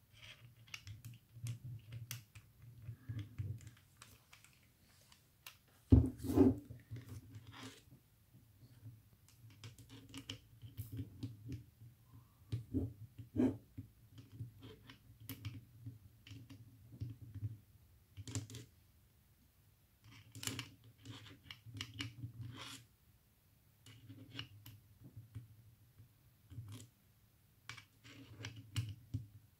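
Hand handling of a cordless drill's keyless chuck and a screwdriver bit: irregular clicks, rattles and scraping as the bit is fitted and the chuck sleeve is turned by hand, with a sharp knock about six seconds in. A hand rubbing close to the microphone adds muffled scuffing.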